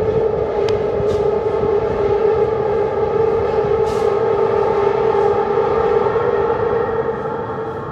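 London Underground train running unseen in the tunnel: a steady whining tone with overtones over a low rumble, swelling in and fading out near the end.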